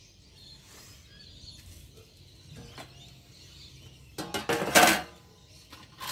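Aluminium sheet panels from a Fronius solar inverter's case being handled and set down, clattering. Faint shuffling comes first, then a burst of loud metallic clanks about four seconds in.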